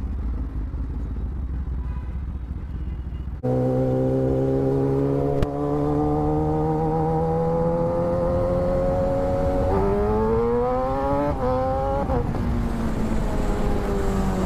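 Kawasaki ZX-10R inline-four engine under way. After a low rumble, the sound switches abruptly about three seconds in to a strong, steady engine note. The note rises slowly, climbs faster as the bike accelerates about ten seconds in, and drops in pitch near the end, with a single sharp click about five seconds in.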